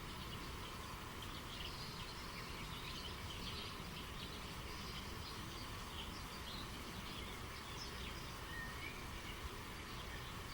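Steady rush of flowing stream water with small birds chirping over it, many short high chirps throughout.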